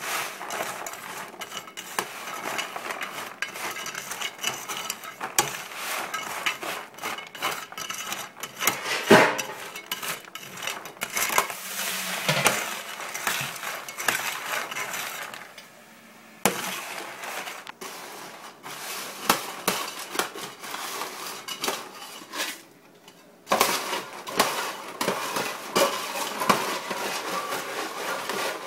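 Metal scoop scraping and clanking against a stainless steel tray as caramel-coated popcorn is stirred and tossed, with the rattle of the popcorn pieces. The stirring stops briefly twice, once around the middle and once about three-quarters through.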